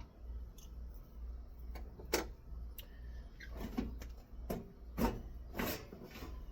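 Hand tools and metal parts clicking and knocking at a metal breaker panel: about half a dozen irregular sharp knocks, the loudest about two seconds in and about five seconds in, over a steady low hum.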